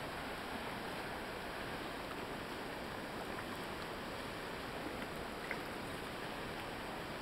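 Steady rush of river water flowing over riffles.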